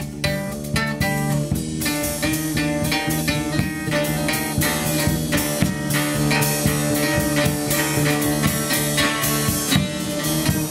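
Acoustic trio playing an instrumental improvisation: plucked mandocello and guitarron over a drum kit, with a steady run of snare and cymbal strokes.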